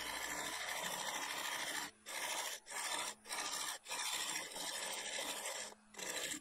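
Hand-held turning tool cutting into a spinning ash lid blank on a wood lathe, hollowing a dish on the underside: a continuous hissing, rasping cut. It breaks off briefly about five times as the tool comes off the wood.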